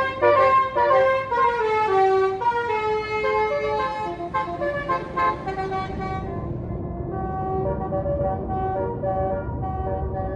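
Tour bus 'telolet' Basuri musical horn playing a tune of quick stepped notes. About six seconds in the horn turns duller and a low bus engine rumble comes up under it.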